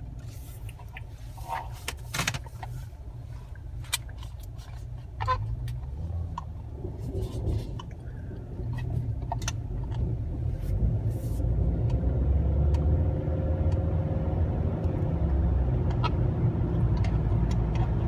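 Low rumble of a car's engine and road noise, heard from inside the cabin, growing louder about eight seconds in. Scattered clicks and crackles come through mostly in the first half.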